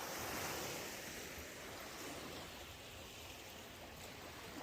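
Distant sea surf: a soft, steady wash of waves that swells a little about half a second in and then eases off.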